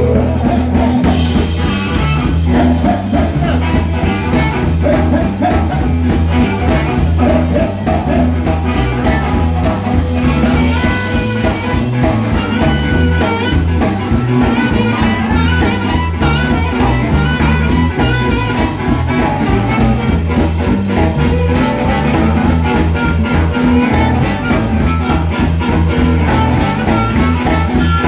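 Live electric blues band playing an instrumental stretch: a blues harmonica played into a hand-held vocal microphone, its notes bending, over electric guitar, bass guitar and a steady drum groove.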